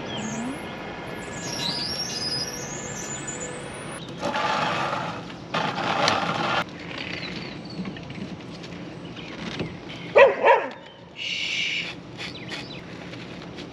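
Birds chirping with rising, twittering calls, while a corrugated RV sewer hose is handled, giving two bursts of rustling and scraping. About ten seconds in, a dog gives two short barks, the loudest sound.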